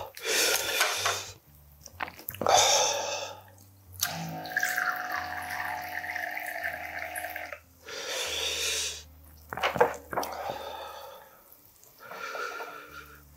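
Electric pump dispenser on a soju bottle running steadily for about three and a half seconds in the middle, pouring soju into a small cup. Before and after it come short bursts of eating and slurping sounds.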